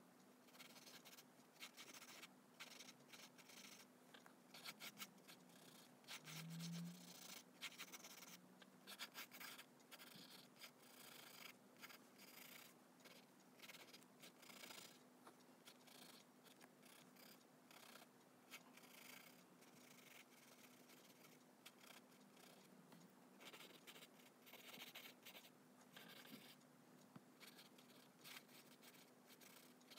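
Faint pencil scratching on paper in quick, irregular strokes, over a steady low hum.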